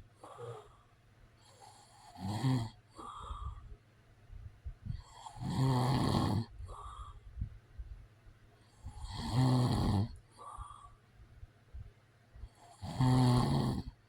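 A man snoring, with four snores about three and a half seconds apart and a softer breath after each.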